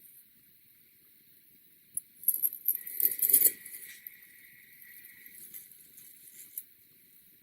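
Kinetic sand crunching crisply under a tool. A sharp click is followed by about a second and a half of loud crackling, with a faint ringing tone held on for a few seconds after, then lighter crackles.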